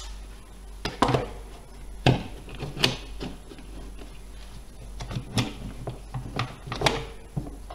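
Plastic one-handed bar clamps being handled on a workbench and tightened onto glued wooden strips: a series of sharp clicks and knocks at irregular intervals.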